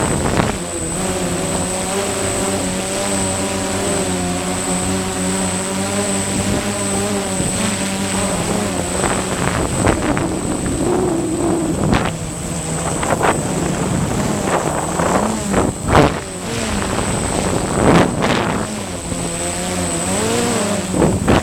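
DJI Phantom 1 quadcopter's motors and propellers whining, the pitch wavering up and down as the drone fights gusty wind. In the second half, several loud gusts of wind buffet the microphone.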